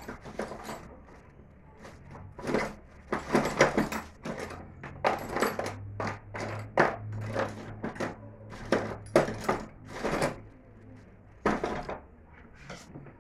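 Irregular series of sharp knocks and clicks from an electric fan's parts being handled and fitted together during reassembly.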